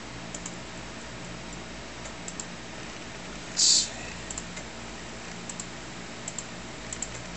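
Light clicks, mostly in close pairs, every second or so from the Amiga computer setup while the CD-ROM is being recognised, over a steady low hum. A short, louder hiss cuts in about halfway through.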